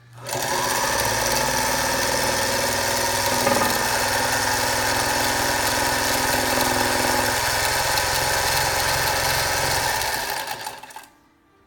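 Singer Featherweight 221 sewing machine running and stitching under the foot pedal: its small electric motor speeds up in the first second, runs steadily for about ten seconds, then winds down and stops.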